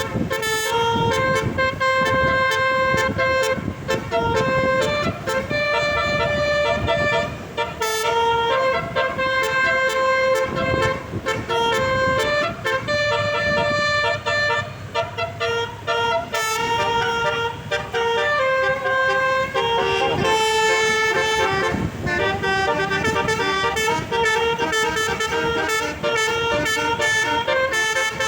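A bus's Basuri telolet horn playing a tune continuously: a run of held multi-tone horn notes that change pitch every half-second to a second, over low vehicle noise.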